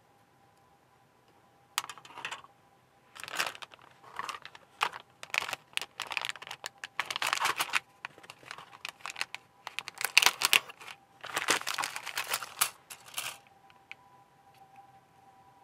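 Clear plastic kit bag crinkling and rustling in irregular bursts for about eleven seconds as plastic model sprues are handled and drawn out of it.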